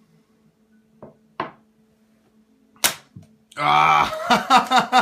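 A dollar bill snapped out from between two beer bottles balanced mouth to mouth: a single sharp crack about three seconds in, after two light ticks. Right after it a man exclaims 'Ah!' and breaks into laughter, the loudest sound near the end.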